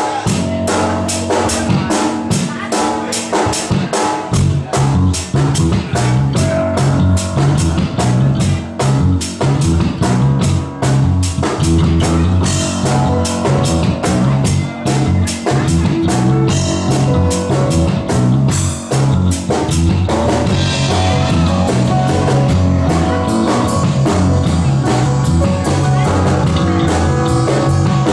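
Live rock band playing, the drum kit keeping a steady, even beat; a heavy low end fills in about four seconds in.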